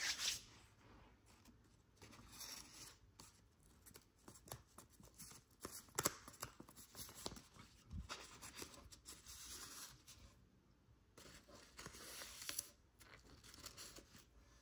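A square sheet of origami paper being folded and creased by hand: soft rustles and sliding swishes broken by short crisp clicks as folds are pressed down, the sharpest snap about six seconds in.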